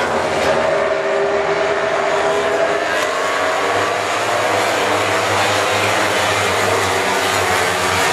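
Several MotoGP race bikes' four-cylinder engines running hard past the trackside, loud and steady, their pitch gliding slowly up and down as they pass and change revs through the corner.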